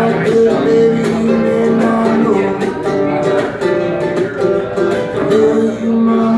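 Live acoustic duo playing: a box-bodied guitar and a mandolin picking together, with a harmonica on a neck rack holding long notes over them.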